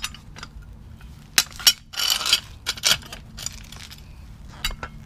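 Plastic wheel chocks clacking and scraping on asphalt as they are handled and set against a car tyre: a few sharp knocks and a short scrape.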